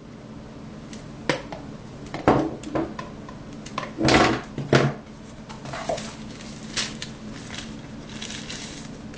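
Packaging of a phone's retail box being handled as accessories are taken out: plastic wrapping and cardboard crinkling, with a series of short clicks and knocks and two louder rustles a little after four seconds in.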